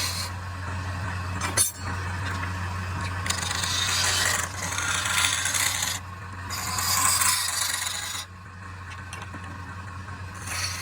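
A tool rasping and scraping across wood in long strokes, each lasting a second or two with short breaks between, over a steady low hum.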